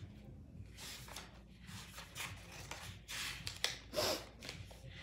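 Pages of a small oracle-card guidebook being flipped by hand: a run of short papery rustles, the loudest a little past the middle.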